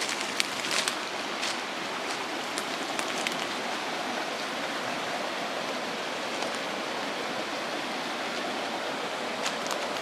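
Steady rush of a river flowing through the valley below. Footsteps crunch on dry leaf litter a few times in the first three seconds.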